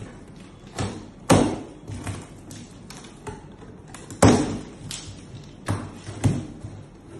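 Plastic packing straps being pulled off a cardboard carton and the box being handled: a run of sharp snaps and thuds, the two loudest about a second in and about four seconds in.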